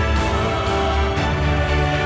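Background music with a steady beat, about one beat a second.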